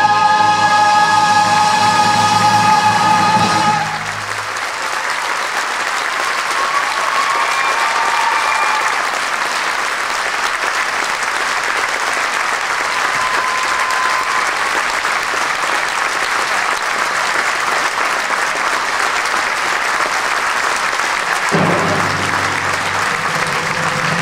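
A choir and orchestra hold the final chord of the musical's finale, which cuts off about four seconds in, followed by a theatre audience applauding. Near the end the orchestra starts playing again under the applause for the curtain call.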